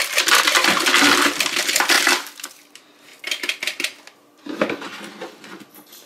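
Crumbs, cracker bits, raisins and dust spilling and rattling out of a Proscenic 820S robot vacuum's plastic dustbin into a plastic wastebasket: a dense clatter for about two seconds, then two shorter rattles.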